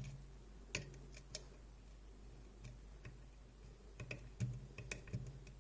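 Faint, irregular small clicks and scrapes of a lock pick working the pins inside a DOM iX6SR dimple lock, with a cluster of clicks near the end; the pin being worked has not set.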